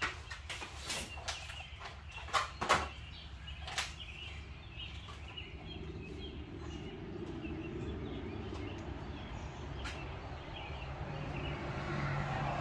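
An umbrella snapped open and set down on the floor: a series of sharp clicks and knocks in the first few seconds, the loudest two close together a little before three seconds in. After that a steady low background hum, louder near the end.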